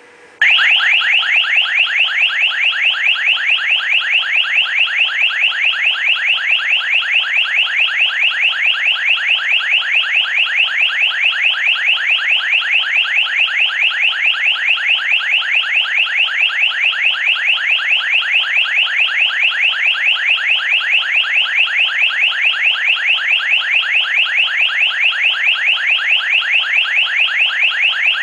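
Motion-sensor chime receiver sounding an electronic alarm tone: a loud, rapidly pulsing warble that starts about half a second in and holds steady without a break.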